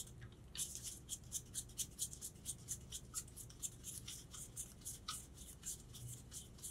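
Faint, quick ticking and rubbing as a steel punch is unscrewed by hand from a punch-press tool canister, about five light ticks a second.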